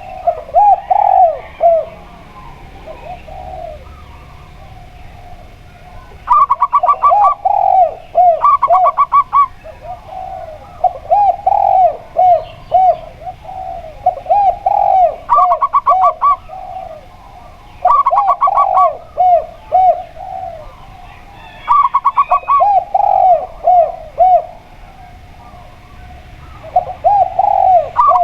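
Zebra dove and spotted dove cooing in turn. Phrases of lower, rounded coos alternate with short runs of quick, rattling notes, one phrase every few seconds with brief pauses between.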